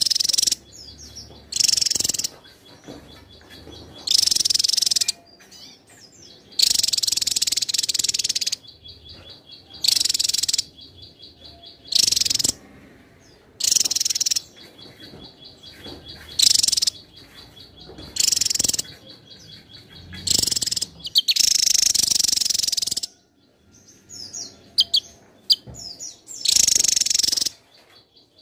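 Javan tesia singing: loud, high-pitched bursts of rapid song, repeated every one to two seconds, with a faint even ticking in the gaps between phrases.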